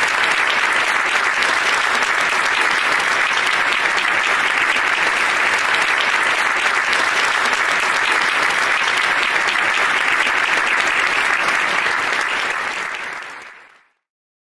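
Audience applauding with steady, dense clapping that fades out near the end and stops.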